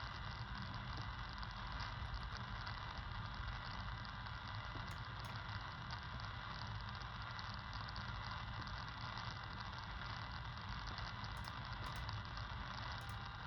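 Unidentified wide-band radio signal centred near 31.28 MHz in the VHF low band, heard through a KiwiSDR software-defined receiver as a steady horn-like buzz over receiver hiss.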